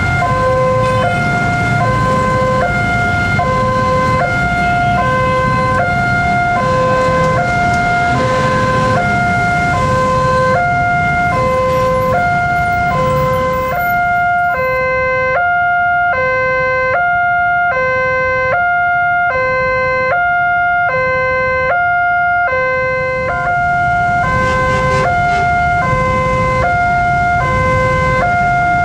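Railway level-crossing electronic alarm sounding a steady two-tone warning, alternating high and low about once a second without changing pitch, over road traffic; it signals that a train is approaching and the barrier is to come down.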